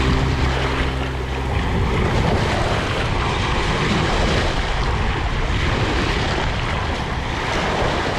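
Sea surf washing in a steady rush of noise. Low held music tones fade out in the first second and a half.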